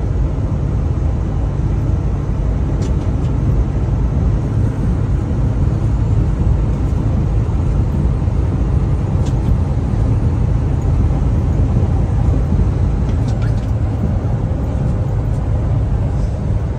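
Steady low rumble of a semi-truck cruising at highway speed, engine and tyre noise heard from inside the cab, with a few faint ticks.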